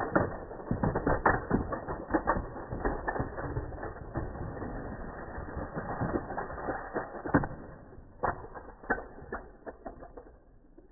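Rapid, irregular mechanical clicking and rattling from a toy car's mechanism. The clicks are dense at first, then thin out and grow quieter over the last few seconds.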